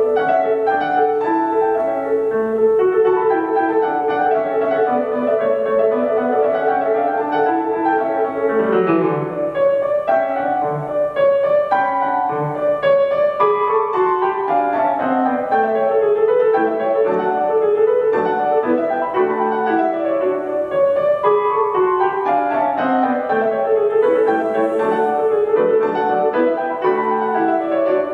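Yamaha grand piano played solo in a classical piece: quick running passages of notes rising and falling, over a middle note held or repeated for the first several seconds.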